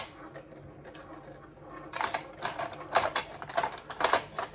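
Cricut cutting machine running as it cuts vinyl, a faint steady hum, with a series of sharp irregular clicks and clacks from about two seconds in.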